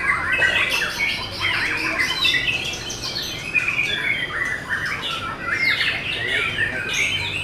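White-rumped shamas (murai batu) singing in contest cages: a dense, unbroken stream of quick whistles, chatter and harsh notes that rise and fall, with several birds overlapping.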